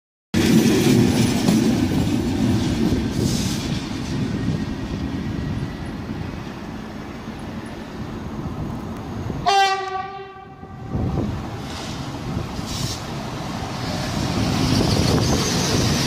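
Electric trains on the tracks: a class 18 electric locomotive hauling double-deck coaches runs past with steady rumbling wheel and rail noise. A train horn sounds once, briefly, about ten seconds in. Another train's running noise grows louder near the end as it comes close.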